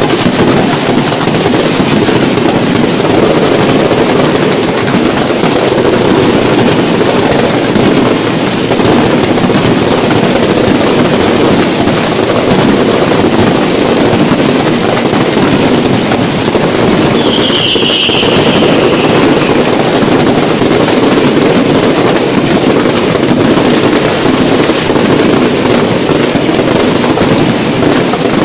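Fireworks show at very close range: a dense, continuous barrage of bangs and crackle, loud throughout, with a brief high whistle a little past halfway.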